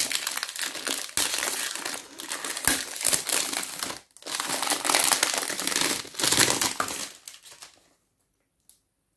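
Packaging crinkling and rustling in the hands as a perfume box is unwrapped, in several bouts with short pauses between them. It stops abruptly near the end, leaving near silence with one faint click.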